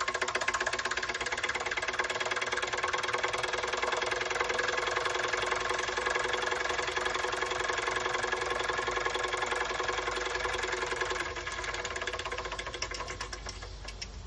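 Restored Doll & Co toy live-steam engine running at speed, a rapid even beat of exhaust chuffs and mechanical clatter. From about eleven seconds in it gets quieter and the beats spread out as it slows.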